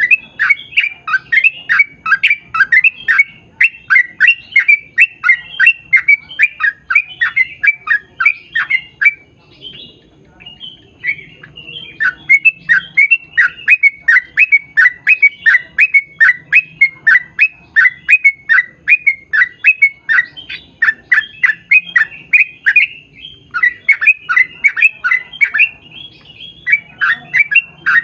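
Yellow-vented bulbul (trucukan) singing a long, fast run of short falling notes, about two or three a second, pausing briefly about a third of the way in and again near the end.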